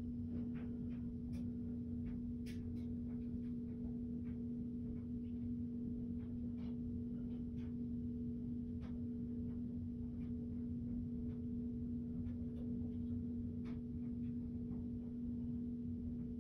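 A steady, even hum, one low tone with a fainter overtone, with a few faint scattered clicks.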